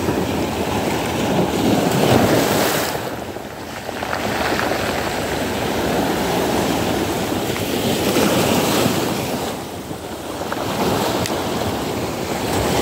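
Sea waves washing onto the shore, the surf swelling and easing in two big surges, with wind buffeting the microphone.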